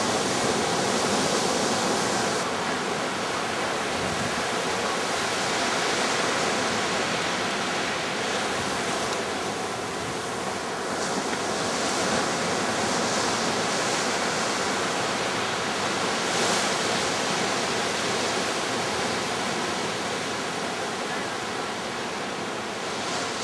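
Ocean surf breaking on a beach: a steady wash of noise that swells and eases gently as the waves break.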